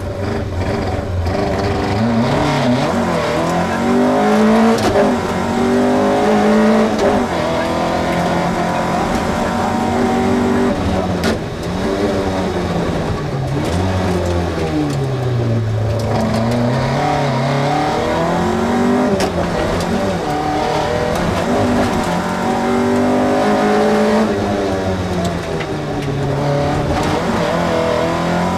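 Opel Ascona A rally car's engine at full stage pace, heard from inside the cabin: the pitch climbs hard through each gear and drops back on gear changes and lifts, again and again.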